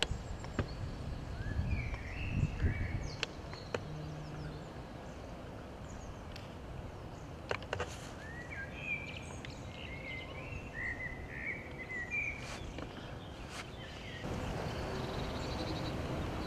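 Outdoor ambience of steady low wind noise with small birds chirping in short twittering phrases, twice, plus a few faint ticks.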